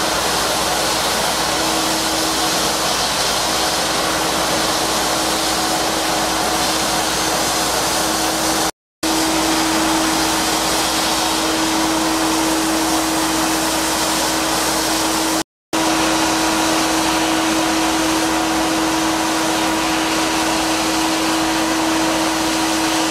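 Sandblasting inside an HBM blast cabinet: a steady, loud hiss of compressed air and abrasive blasting the coating off a part, with a steady hum underneath. The sound cuts out completely twice for a fraction of a second.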